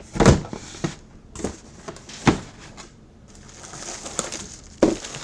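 Boxed memorabilia being handled on a table: a few separate knocks and thumps, and a soft rustle of packaging near the end.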